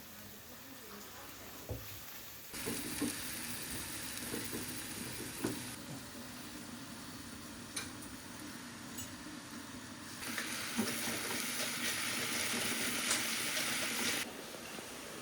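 Food frying in a pan, a steady sizzle with a few short knocks and scrapes of a utensil; the sizzle starts suddenly a couple of seconds in and grows louder for a few seconds near the end.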